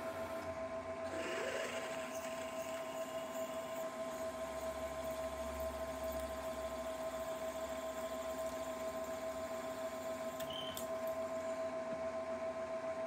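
Milling-drilling machine spindle running with a steady whine while a drill bit is fed into a metal part. There is a short scraping rasp about a second in.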